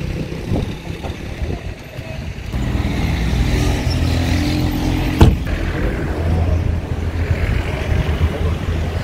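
A car door shuts with a sharp slam about five seconds in, over a steady low engine hum.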